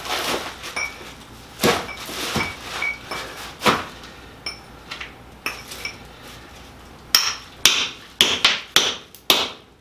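Hammer blows on a chisel set against a chunk of zeolite-bearing basalt (lava rock) to split it open. The strikes are irregular, some followed by a short metallic ring, and near the end comes a quick run of about six blows.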